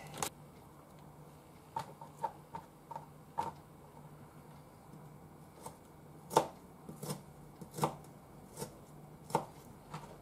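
Kitchen knife slicing cucumber on a cutting board: about a dozen short taps of the blade striking the board at an irregular pace, a run of lighter strokes first, then louder, more widely spaced ones.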